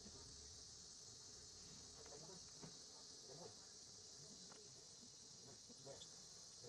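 Faint steady high-pitched insect drone, with small scattered clicks and rustles.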